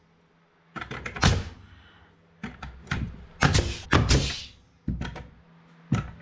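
Pneumatic nail gun firing nails through wooden blocking into a floor joist: a series of sharp shots, about eight, spaced half a second to a second apart after a quiet first moment.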